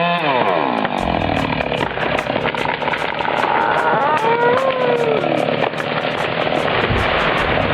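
Heavy machinery engine running under a steady mechanical din, its pitch rising and falling near the start and again about four seconds in.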